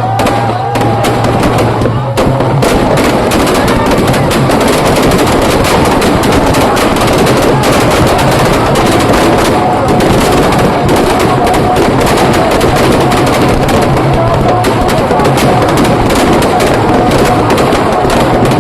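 Firecrackers packed into a burning Ravan effigy going off in a dense, continuous rapid crackle, many bangs overlapping with no pause.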